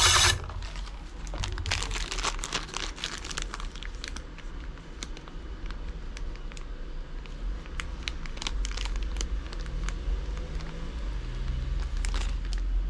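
A small clear plastic bag of black rotor bolts crinkling as it is handled, with the bolts clicking inside it. A brief loud clatter comes right at the start, and the crinkling is densest a couple of seconds in.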